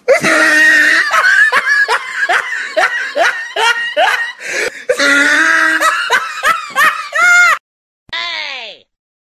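Loud laughter, a long run of short ha-ha pulses at about three a second that stops about seven and a half seconds in, followed by a short sound sliding down in pitch.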